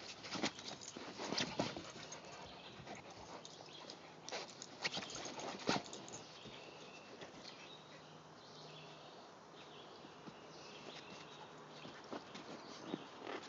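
A German Shepherd puppy and another dog play-wrestling: faint scuffling with sharp knocks and clicks, busiest in the first six seconds and again near the end.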